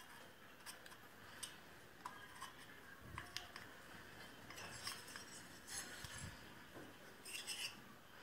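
Faint, irregular light metallic clicks and clinks of small engine parts and hand tools being handled, with a short quick cluster of clicks near the end.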